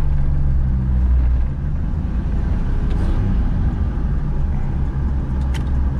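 A 1953 Chevrolet panel truck's inline six-cylinder engine running at low speed, heard from inside the cab. The engine note drops about a second and a half in as the truck slows. A single short click comes near the end.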